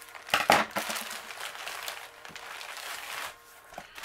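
Clear plastic air-bag packaging crinkling and crackling as it is handled and pulled off a rolled diamond-painting canvas. The loudest crackle comes about half a second in, and the rustling dies down a little after three seconds.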